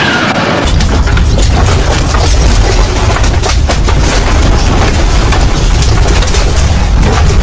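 Earthquake shaking a room: a deep, heavy rumble comes in suddenly under a second in and holds, with furniture, shelves and a computer monitor clattering and knocking throughout.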